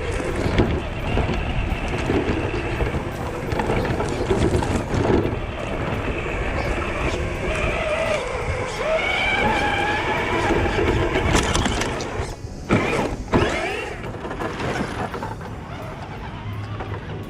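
Electric motor of a Tamiya Lunchbox RC car whining as it speeds up and slows, over a steady noisy rumble of the car running.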